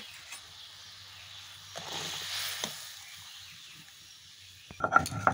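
Tamarind gravy simmering in a kadai with a soft hiss that swells briefly about two seconds in; near the end, a quick run of knocks and clinks.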